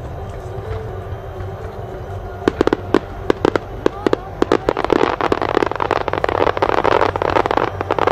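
Fireworks display: a run of sharp bangs begins about two and a half seconds in and builds into dense crackling with rapid reports, then stops suddenly near the end.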